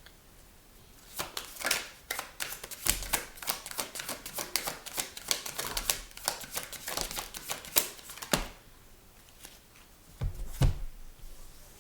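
Tarot cards being shuffled: a long run of quick, crisp card clicks and flutters, then a heavier knock as the deck or cards are set down on the table near the end.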